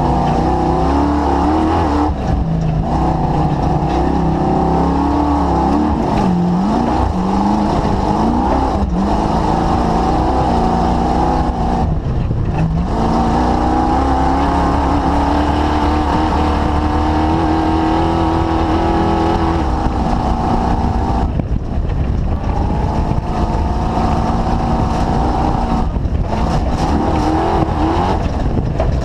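Engine of the DirtKinetics Explorer off-road vehicle running under load at cruising pace, its pitch gliding up and down as the throttle is worked. The revs drop off briefly about five times before picking up again.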